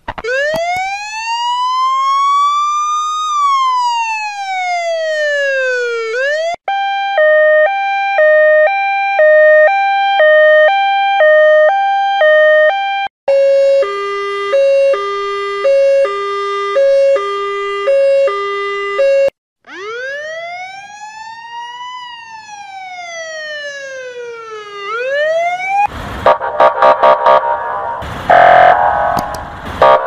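A string of emergency-vehicle siren variations for police car, fire truck and ambulance, played one after another. First comes a slow wail that rises and falls, then two alternating two-tone hi-lo sirens, the second lower in pitch, then another rising-and-falling wail. Near the end there is a dense, loud blare with short horn blasts.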